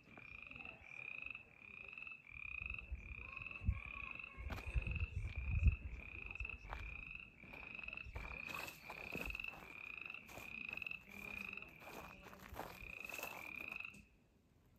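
A small animal calls over and over: a short, slightly rising nasal note repeated a little less than twice a second, stopping shortly before the end. Low rumbles and a few thumps come through in the middle.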